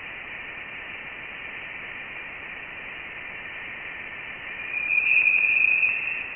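Voyager 1 plasma wave instrument data played through a loudspeaker: a steady radio-like hiss with faint high tones. About two-thirds of the way through, a louder high-pitched tone swells in. These are electron plasma oscillations, the evidence that Voyager 1 had left the heliosphere for denser interstellar plasma.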